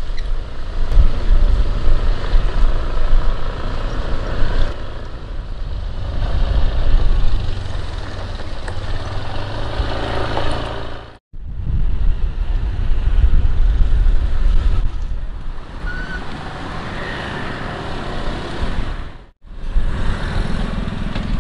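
Motor scooter on the move: the engine running under a steady rush of wind on the microphone. The sound drops out abruptly twice, once about halfway and once near the end.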